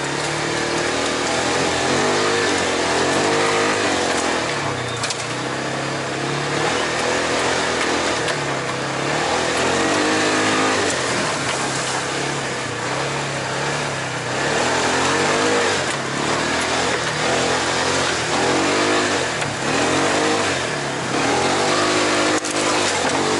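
Side-by-side UTV engine running under way, its pitch rising and falling again and again as the throttle is worked.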